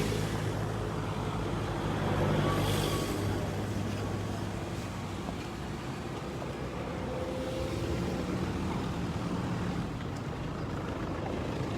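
Motor vehicle engine running steadily at low speed, with road and traffic noise; it swells briefly about two seconds in.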